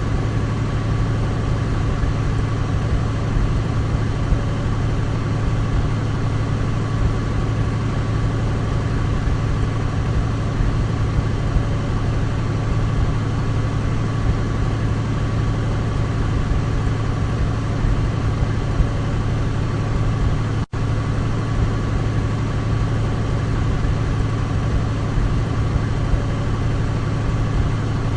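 Douglas DC-3's radial piston engines running at a steady drone with a deep low hum and a fainter steady higher tone. About twenty seconds in, the sound cuts out for an instant and resumes unchanged.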